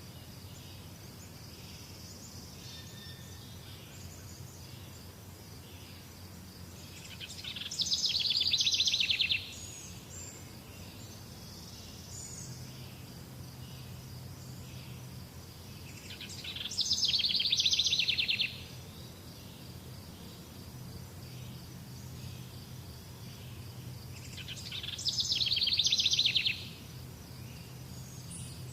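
A bird's rapid trilling song, repeated three times about every nine seconds. Each phrase lasts about two seconds, swells and then stops abruptly. A steady high insect drone and scattered faint chirps run underneath.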